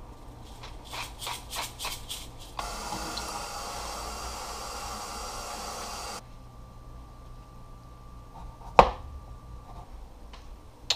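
A hand spice grinder worked in about six short rasping turns, then a kitchen tap runs steadily for about three and a half seconds and is shut off. Near the end, a single sharp knock.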